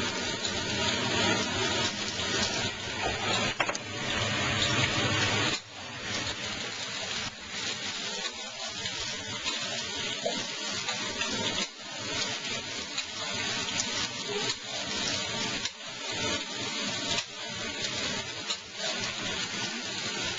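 Eggplant frying in oil in a pan, a steady sizzle with crackles that drops abruptly in level about five and a half seconds in.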